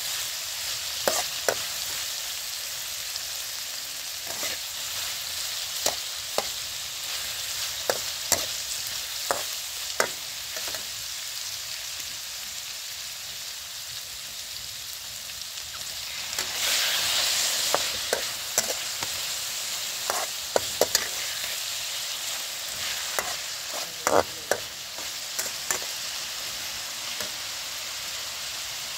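Sliced pork sizzling as it fries in a steel wok, with a metal spatula scraping and clicking against the pan at irregular moments. The sizzle swells louder for a second or two about halfway through.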